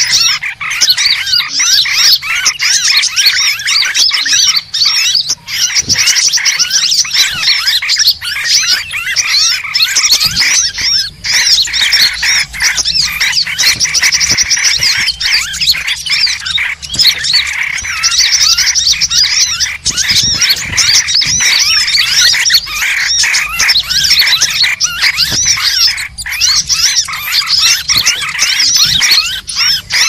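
Dense, unbroken chorus of many small birds' chirps, whistles and fast trills at a steady high level: a bird-luring call recording (suara pikat) meant to draw birds of all kinds in.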